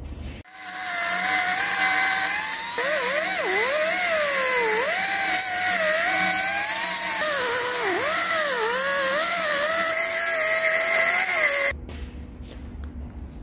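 Angle grinder with a cut-off disc spinning up and cutting through the weld around the oil port on a steel hydraulic cylinder barrel. Its whine sags and wavers in pitch as the disc bites into the steel, then steadies and cuts off suddenly near the end.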